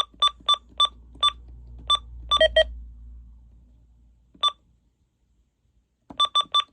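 Short, sharp electronic key beeps from NOAA weather alert radios as their buttons are pressed to silence and reset them. There are about a dozen beeps in quick uneven runs, a few of them lower-pitched, with a pause of nearly two seconds before a final fast run.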